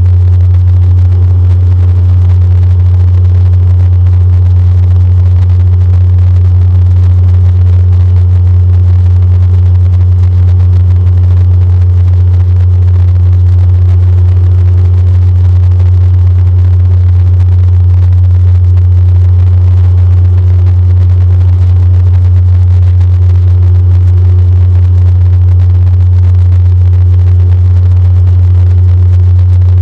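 Cabin drone of a DHC-8 Q400's propeller and turboprop engine heard from a window seat right beside the engine during the climb-out after takeoff: a loud, very steady low hum with a fainter higher tone above it.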